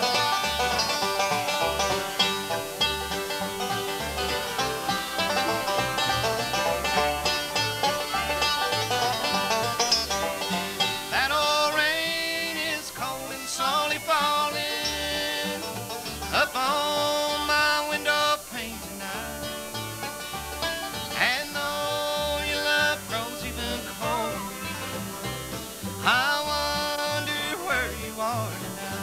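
Live bluegrass band playing an instrumental break on acoustic guitar and fiddle over a steady bass pulse. From about halfway through, the fiddle carries the lead with sliding, bending notes.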